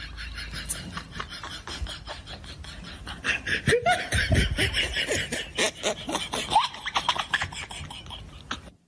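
A quick run of soft pats, a pug's paw slapping against a person's palm in a high-five game, with a person laughing from about three and a half seconds in.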